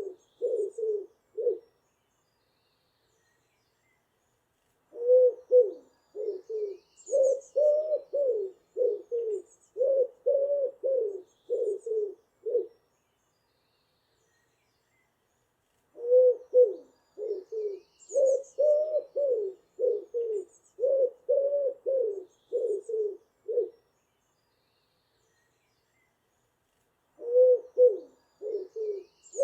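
Pigeon cooing: runs of low, soft coos in bouts of about seven seconds, broken by pauses of a few seconds of silence. Faint high chirps of other birds of the dawn chorus come in during the bouts.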